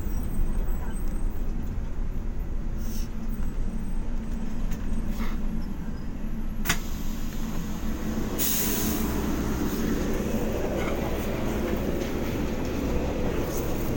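Airport apron shuttle bus heard from inside: a steady low engine and road rumble as it rolls, with a sharp click a little before halfway and a short hiss of air about two-thirds through.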